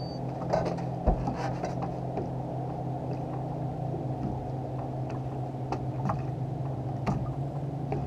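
Boat motor running with a steady low hum, under a few sharp knocks and clatters from a caught striped bass being handled on the deck, the loudest about a second in.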